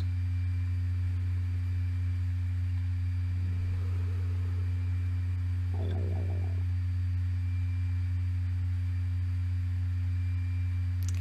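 Steady low electrical hum with a fainter high tone above it, in a pause with no talking, and a brief faint sound about six seconds in.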